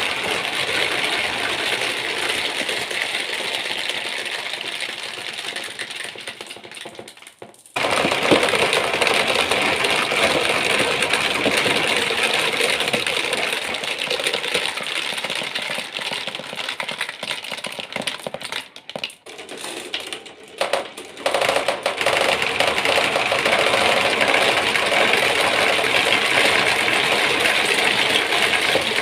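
Many marbles rolling and clattering along marble run tracks, a dense continuous rattle of small hard balls clicking against the track and each other. It fades and drops out briefly about a quarter of the way through, then starts again suddenly, with a couple more short dips later.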